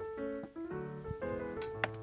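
Light background music: short pitched keyboard notes in a bouncy, even pattern.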